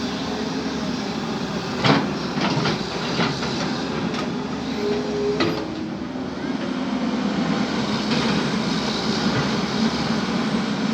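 Excavator working: its diesel engine runs steadily under load, with sharp metal clanks about two seconds in and again around five seconds, and a brief whine near the middle.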